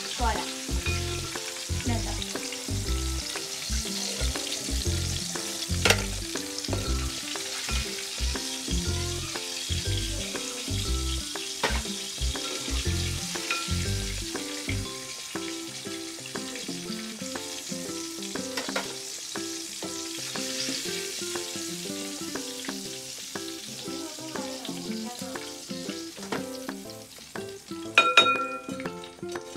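Breaded chicken pieces deep-frying in hot sunflower oil, a steady sizzle, with a few sharp clicks and a short clatter near the end. Background music with a beat plays under it for the first half.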